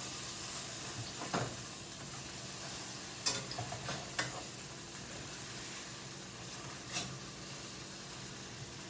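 Turkey burger patties sizzling in a hot frying pan, with a few short taps and scrapes of a spatula against the pan.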